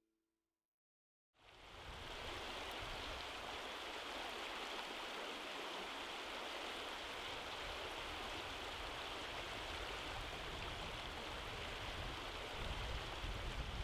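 A shallow river rushing steadily over rocks, starting about a second in, with a low rumble growing louder near the end.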